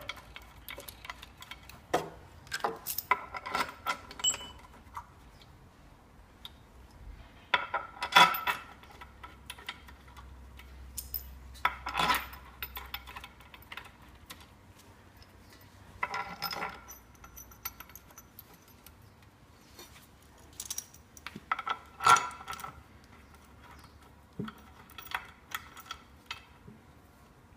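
Metal bolts clinking and tapping against a rotary lobe pump's metal front cover as they are handled and threaded in by hand, with a few louder ringing clanks spaced several seconds apart.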